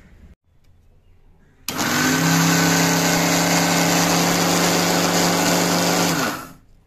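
Indian mixer grinder (mixie) running, grinding bread into fine crumbs. It switches on abruptly about two seconds in, runs loud and steady at one pitch for about four and a half seconds, then winds down near the end.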